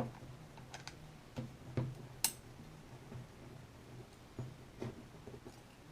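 Scattered light clicks and knocks of a metal bracket being handled and fitted onto a plastic spool holder, with one sharp click a little past two seconds in. A low steady hum sits underneath.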